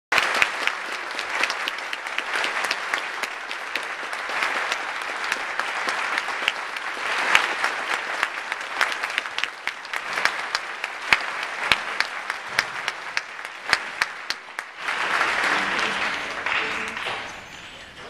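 Concert audience applauding, the dense clapping thinning to scattered claps, then a brief swell of crowd voices near the end before it fades.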